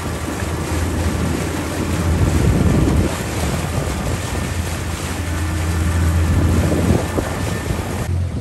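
Boat motor running steadily under way, with wind buffeting the microphone and water rushing past the hull. It stops abruptly near the end.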